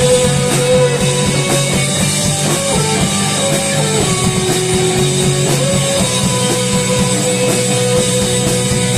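Instrumental rock passage with drum kit and guitars. A long held lead note steps down in pitch about four seconds in and returns about a second and a half later.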